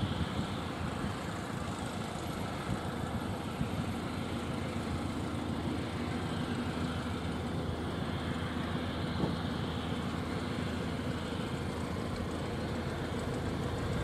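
Cessna Citation Mustang's twin Pratt & Whitney Canada PW615F turbofans at taxi power, a steady distant hum and hiss as the jet taxis.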